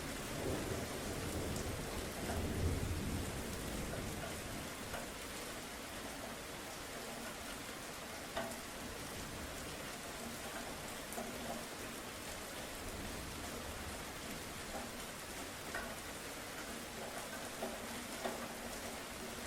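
Steady rain falling, with a low rumble of thunder in the first few seconds that dies away, and a few louder single drops ticking now and then.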